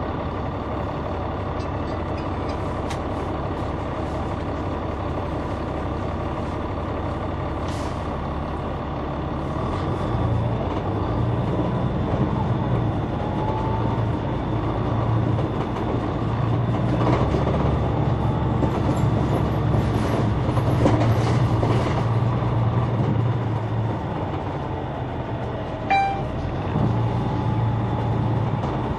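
Caterpillar C9 inline-six diesel of a 2004 Neoplan AN459 articulated bus, heard from on board: a steady engine drone that grows louder and heavier from about ten seconds in as the engine works harder. A brief sharp sound comes near the end.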